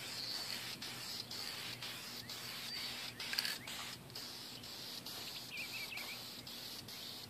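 Aerosol spray can hissing as clear coat is sprayed onto a metal wire dish rack, with birds chirping in the background.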